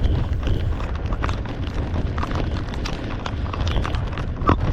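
Heavy rain pelting a chest-mounted camera on a moving motorcycle: a dense, irregular patter of drops striking the camera and microphone over a steady low rumble, with one sharper knock about four and a half seconds in.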